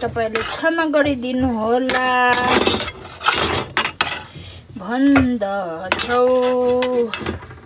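A person's voice making long held notes, with a metal spoon clinking and scraping against a perforated aluminium momo steamer tray.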